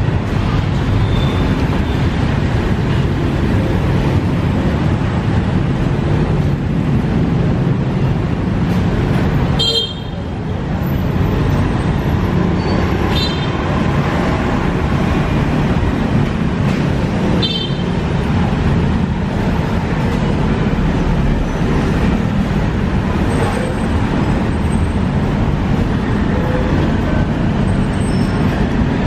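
Steady, loud street traffic noise from the road just outside. A few short, high ringing sounds stand out about 10, 13 and 17 seconds in.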